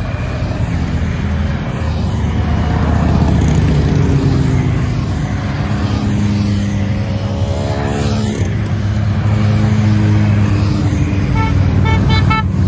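A stream of motorcycles riding past one after another, engines running steadily. About two-thirds of the way through, one bike's engine rises in pitch as it passes and then drops away. A quick run of short beeps sounds near the end.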